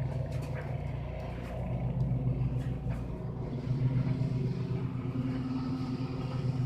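A motor vehicle's engine running, a steady low hum that grows louder about two seconds in and again a little later.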